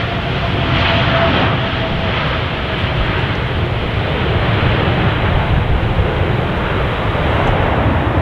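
Airliner engines running loud and steady, a dense rushing roar with a faint thin whine that fades out in the first second or two.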